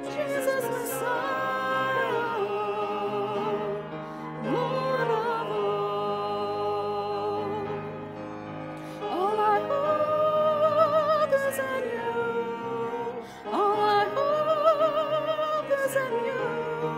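A hymn sung by a single voice with wide vibrato, each phrase sliding up into a long held note, over sustained pipe organ chords.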